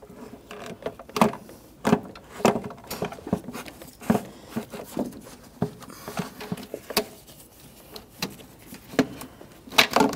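Plastic intake manifold being worked loose and lifted off the engine: a run of irregular clicks, knocks and rattles, the loudest near the end.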